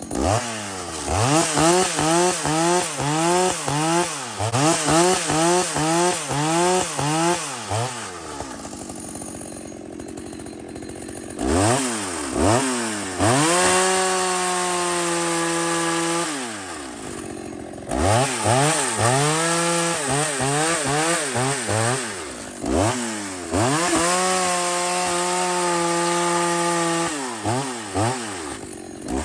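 Chainsaw engine revved in quick repeated blips, about one and a half a second, then dropping to idle. It twice climbs to high revs and holds steady there for a few seconds before falling back.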